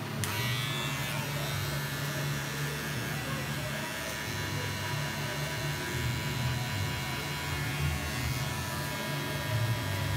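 Cordless electric hair clippers running with a steady low buzz as they cut close at the back of the neck.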